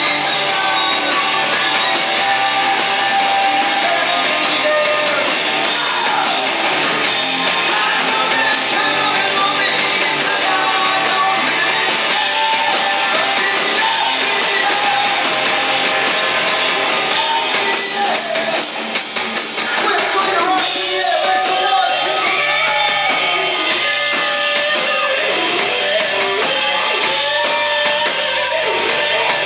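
Live rock band playing loud: a male singer over electric guitar and a drum kit. The sound dips briefly about two-thirds through, and bending, gliding notes follow.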